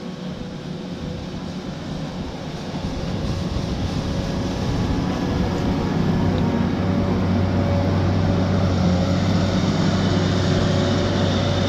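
Komatsu WA250PT wheel loader's diesel engine running steadily under load as it plows snow with a front blade, growing louder over the first half and then holding.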